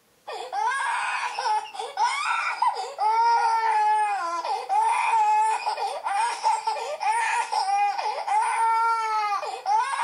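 A baby's high-pitched voice in a long run of short wavering calls, cutting in suddenly just after the start.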